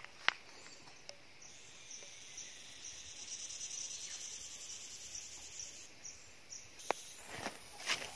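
Insects chirring in a steady high-pitched drone that swells in the middle, with a few sharp clicks.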